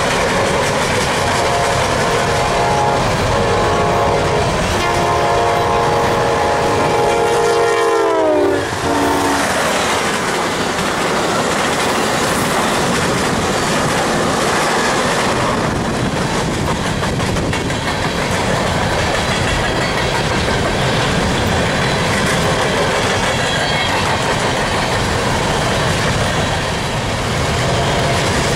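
An Amtrak GE P42DC locomotive's air horn sounds a chord of several notes for about eight seconds, then drops in pitch as it passes and stops. The passenger cars then rush by with wheel clatter, over an empty coal train of gondolas rolling on the other track.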